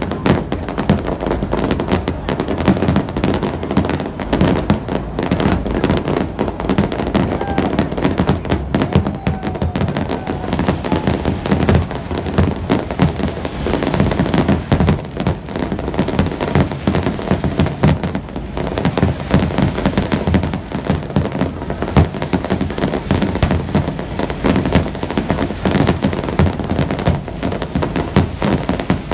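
Aerial fireworks display at full intensity: rapid, overlapping bangs and crackling shell bursts, continuous with no pause.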